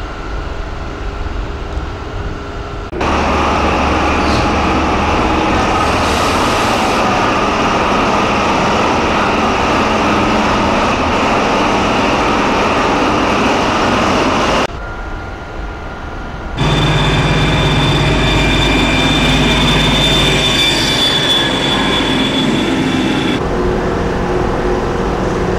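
Diesel trains running at a station platform, in several takes joined by abrupt cuts: a diesel locomotive hauling regional coaches, then a class 771 diesel railbus. Steady engine and rail noise, with a high steady whine for a few seconds after the middle cut.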